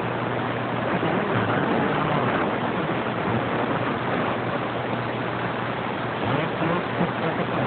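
CB radio speaker hissing with static and band noise while receiving on channel 6, over a steady low hum; no readable signal comes through as the skip conditions fade.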